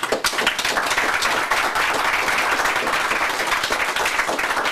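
Small audience applauding, many hands clapping in a dense, steady patter.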